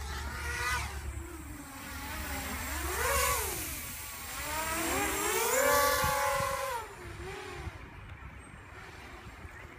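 Emax QAV250 quadcopter's four MT2204 2300KV brushless motors with Gemfan 6x3 propellers, whining in flight. The pitch rises and falls with the throttle and is loudest around the middle. It drops away suddenly about two-thirds of the way in, leaving only a faint whine.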